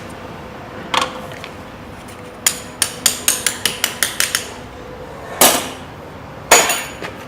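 Sharp taps of a tool on a DC motor armature as winding coils are worked down into the slots. There is a single tap, then a quick run of about nine light taps, then two louder knocks.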